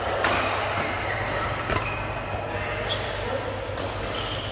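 Badminton rackets striking a shuttlecock in a large indoor hall: two sharp cracks about a second and a half apart, with a fainter one later, over a steady low hum.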